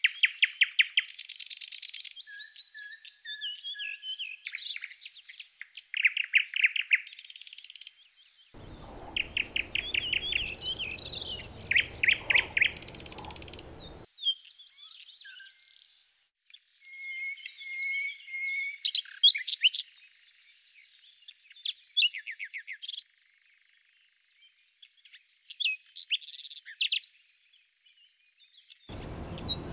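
Background nature-sound recording of several songbirds chirping, with rapid trills of repeated notes and short whistles throughout. A low, even rustling haze sits underneath for a few seconds in the middle.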